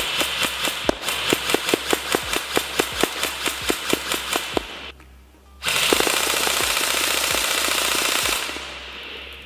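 Apex Fast Attack 702 airsoft electric rifle firing a quick, even string of shots, about six a second, for some four seconds. After a brief pause it fires a sustained burst of about three seconds that fades out near the end. Faint background music with a steady beat runs underneath.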